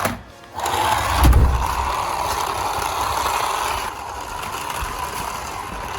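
Toy remote-control car running: a steady whirring mechanical noise that starts about half a second in, with a low thump about a second in.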